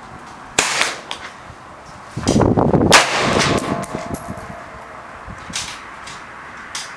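AR-15 rifle in .223 being fired: a sharp shot about half a second in, then a louder, longer report around three seconds in that rings out over a second or so, with a few small clicks between.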